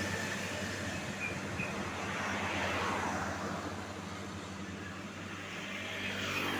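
Road traffic at the roadside: two vehicles pass, each a swelling then fading rush of engine and tyre noise, the first about halfway through and the second near the end. Under it runs a steady low engine hum, and no telolet horn plays.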